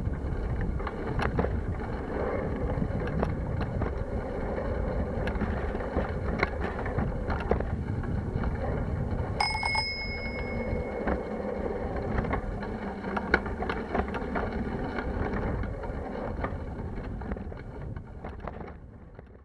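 A bicycle being ridden over a concrete lane: low, steady rumble of the ride with scattered knocks and rattles. About halfway through, a bicycle bell is rung once, a bright ring that dies away over a second or so. The sound fades out near the end.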